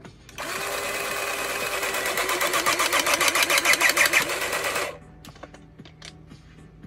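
Cordless 12-ton hydraulic crimping tool running its motor and pump against a pressure gauge: a steady mechanical whine that pulses more strongly and grows louder as pressure builds, then cuts off abruptly near five seconds in.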